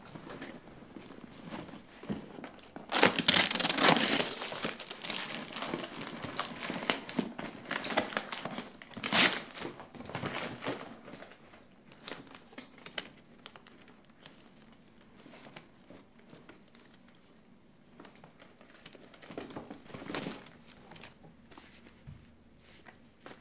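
Cardboard box opened and its hanging file folders and papers leafed through: paper and cardboard rustling and crinkling, loudest for about two seconds starting three seconds in, a sharp rustle near nine seconds, then quieter shuffling of papers with another short burst near the end.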